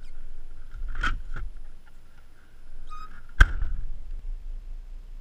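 A car's rear hatch being shut, heard from inside the cargo area: a knock about a second in and a smaller one just after. Past the middle comes a much louder, sharper bang with a short ring after it.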